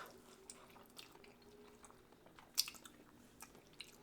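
A person chewing food with soft, wet mouth clicks and smacks, and one sharper click about two and a half seconds in.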